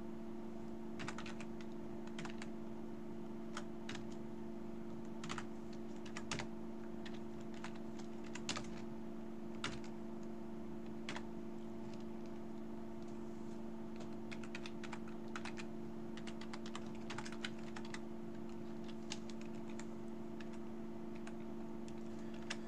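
Typing on a computer keyboard: scattered runs of keystrokes with short pauses between them, over a steady low hum.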